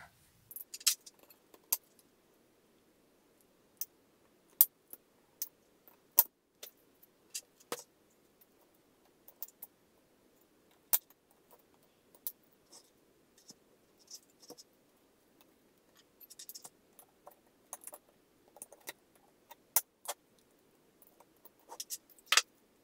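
Scattered sharp clicks and snips of side cutters cutting the wires of the old BMS board off a 36 V lithium-ion battery pack, with small clicks of handling in between.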